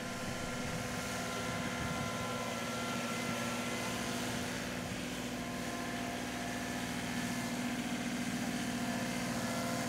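John Deere 2038R compact tractor's three-cylinder diesel engine running steadily as the tractor pushes dirt with its front loader, heard at a distance.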